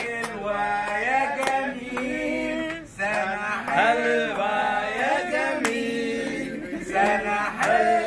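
A man singing unaccompanied, with long held, wavering notes and short breaks between phrases. A few scattered hand claps sound over the singing.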